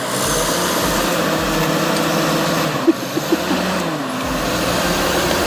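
Franklin forestry machine's engine running steadily, with a few short sharp clicks about three seconds in and a slight drop in engine pitch just after.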